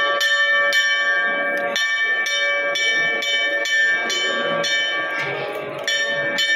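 Temple bell struck over and over, about two strikes a second, its ring carrying on between strikes, with one harder strike near the end.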